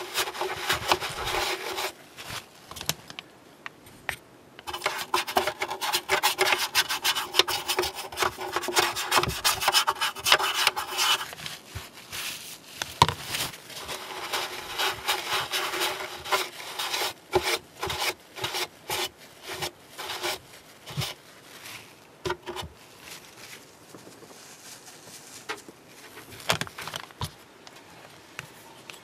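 A wad of tissue scrubbed back and forth over the plastic hangar deck of a ship model, wiping off black weathering colour, in long stretches of steady rubbing. About halfway in the rubbing breaks into shorter, scattered scrapes and rustles that grow softer.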